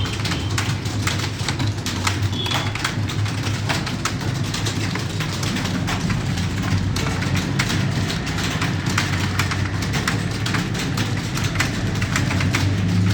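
Computer keyboard being typed on fast and continuously, a dense irregular run of key clicks over a steady low hum.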